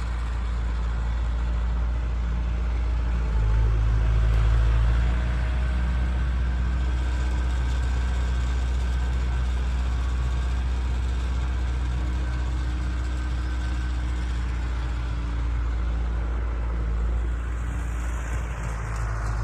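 Allis-Chalmers 6080 tractor's diesel engine running steadily while it works a hay bale into place, louder for a second or two about three and a half seconds in.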